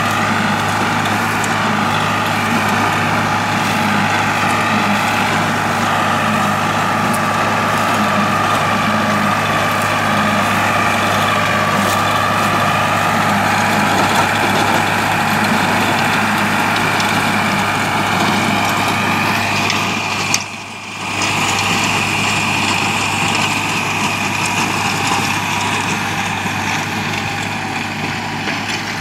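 Tractor diesel engine running steadily under load, driving a rear-mounted rotavator that churns soil and crop stalks, with a steady whine over the engine note. The sound dips briefly about twenty seconds in.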